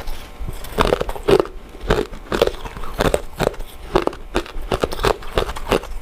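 Close-miked eating sounds of a person chewing soft, chewy glutinous rice desserts, with wet mouth noises repeating about three times a second.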